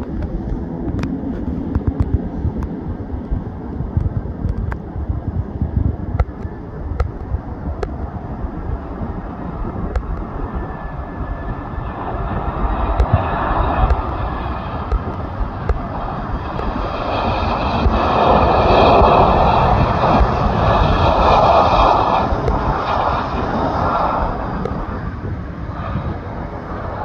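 easyJet Airbus A320-family airliner arriving to land, its jet engine noise building from about halfway through, loudest a few seconds later, then easing off. Wind rumble on the microphone runs underneath.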